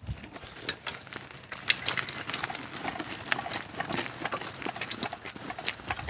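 Irregular crunching and clattering on a dry dirt trail: footsteps and a bicycle rolling over rough ground.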